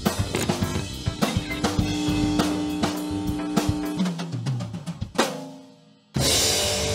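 Rock drum kit playing fast with a held bass note under it, stepping down in pitch in a fill to one big hit about five seconds in, then dying away. A distorted electric guitar chord crashes in near the end and rings on.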